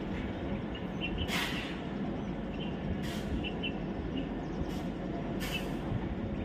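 Outdoor ambience: a steady low rumble with four short hissing gusts, and small birds chirping now and then.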